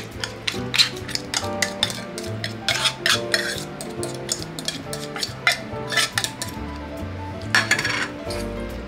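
Utensil scraping and clinking against a metal tuna can and a stainless steel bowl as canned tuna is scraped out, a run of quick irregular clicks and scrapes with a longer scrape near the end, over background music.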